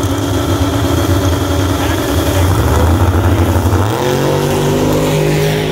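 Two drag-racing cars' engines rumbling loudly at the starting line, then revving up with a rising pitch about four seconds in and holding at high revs.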